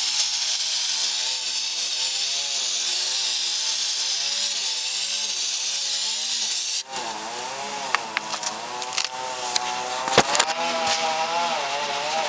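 Aerosol brake cleaner spraying in a steady hiss into a transmission oil pan, over a small engine running in the background with a wavering pitch. About seven seconds in the spraying stops abruptly and scattered clicks and knocks follow.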